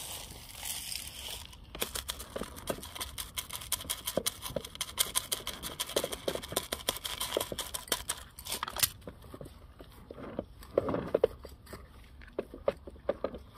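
Small masa gravel (decomposed-granite grit) poured from a plastic scoop onto the soil of a potted succulent, with many small stones clicking and rattling together for several seconds as a top dressing. After that come scattered clicks and light taps as gloved hands press and settle the grit.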